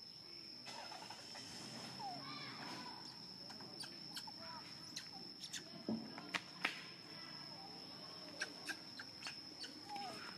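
Faint outdoor ambience: a steady high-pitched whine throughout, with scattered short falling chirps and a few sharp clicks, the loudest clicks about six seconds in.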